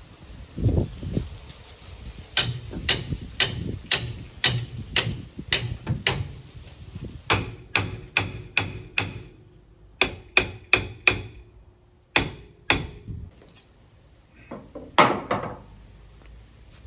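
Hammer blows on the seized rear brake drum of a 1963 Studebaker Lark, stuck from the car sitting for a long time. First comes a steady run of sharp metallic strikes, about two a second, then quicker bursts of blows with a faint ring under them, and a few single hits near the end.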